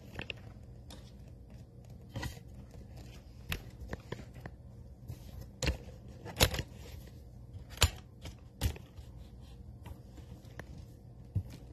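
Handling noise from a stiff camera mount being worked to shift the view: scattered sharp clicks and knocks with some scraping, irregular and spaced out. The loudest clicks fall in the middle of the stretch.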